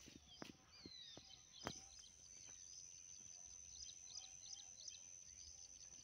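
Faint birds chirping and twittering in quick short calls, over a steady high-pitched hum. A few sharp clicks stand out, the loudest nearly two seconds in.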